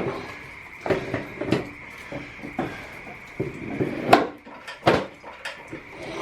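Weight plates being loaded onto a barbell: a series of separate knocks and clanks, about six spread over a few seconds.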